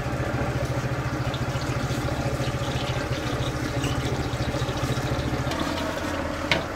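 An engine idling with a steady low throb that stops about five and a half seconds in, followed by a sharp click near the end.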